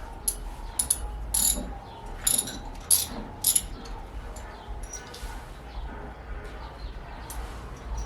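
Sharp clicks and scrapes of TV wall-mount hardware being handled: about six loud ones in the first four seconds, then fainter ones.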